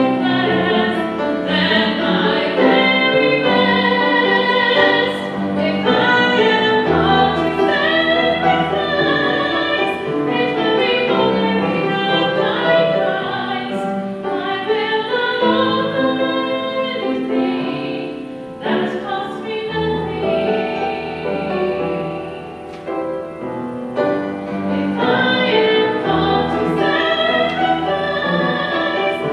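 A woman singing a solo with a wide vibrato, accompanying herself on an upright piano.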